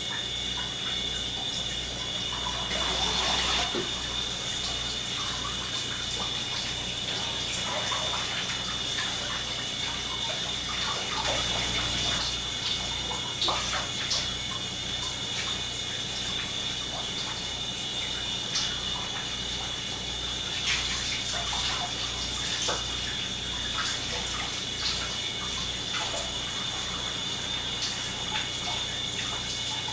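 Shower spray running steadily onto people in a tiled stall, with scattered splashes and spatters.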